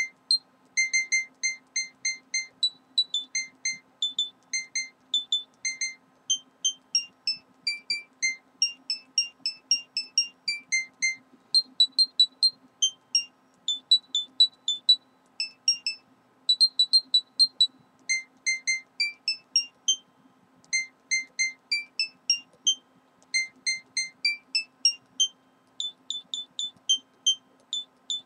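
Background music: a simple melody of short, high, beeping notes, about three or four a second, stepping up and down in pitch, over a faint steady hum.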